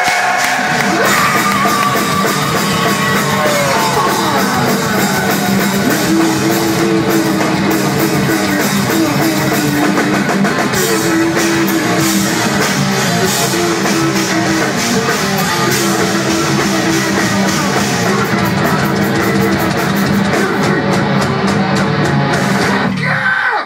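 Rock band playing live and loud: electric guitars with sustained notes over a drum kit and cymbals, breaking off abruptly at the very end.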